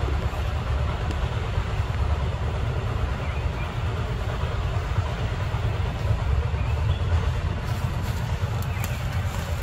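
Steady low rumble of outdoor background noise, with a few faint ticks near the end.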